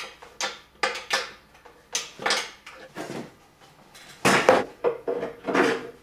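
A series of sharp knocks and clatters, about ten in six seconds, from painted wooden frame parts and their metal bolts being handled and fitted together.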